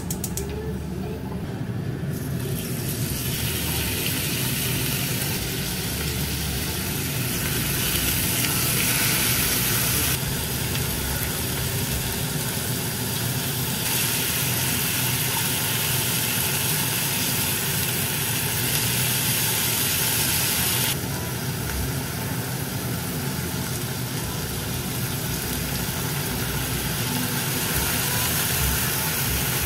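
Meat frying in a hot pan on a gas stove: steady sizzling over a low rumble, stepping louder and softer a few times.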